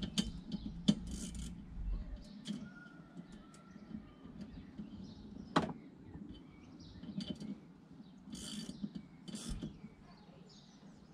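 Hand tools clicking and clinking on metal as the 17mm nut holding a Saab 9-5 wiper arm to its spindle is fitted and tightened: scattered sharp metallic clicks and knocks, the loudest about a second in and about five and a half seconds in.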